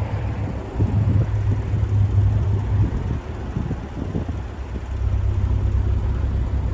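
Wind buffeting the microphone: a low rumble that comes and goes in gusts, swelling about a second in and again from about five seconds.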